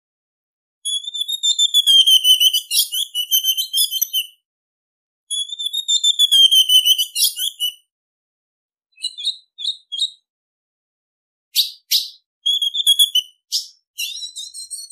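Ultramarine grosbeak (azulão) female calls, recorded as a lure for males. There are two warbling phrases of about three seconds each, then shorter clusters of high chirps and sharp notes, with another phrase starting near the end.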